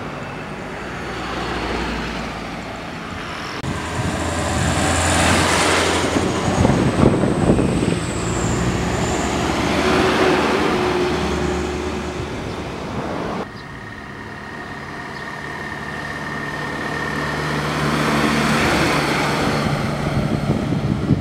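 A car and several diesel trucks driving past one after another, each one's engine and tyre noise rising as it nears and fading as it goes. The sound drops suddenly about two thirds of the way through, then builds again with the next truck.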